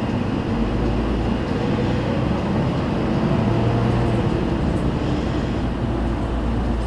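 City bus engine running and low cabin rumble heard from inside the bus, growing stronger about half a second in as the bus pulls away from the stop.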